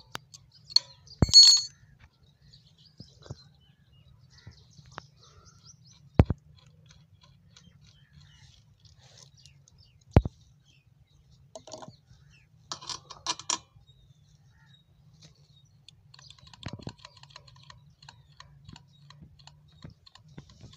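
A few sharp knocks and small metallic clicks as hands and tools handle a stopped Lion Brand diesel engine around its fuel filter and pipes. The loudest single knocks fall about a second in, at six seconds and at ten seconds, with a quick run of light clinks near thirteen seconds, over a faint low hum.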